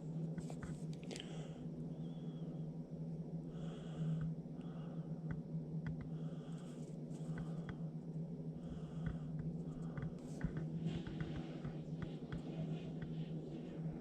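A steady low hum with scattered light clicks and rustles over it.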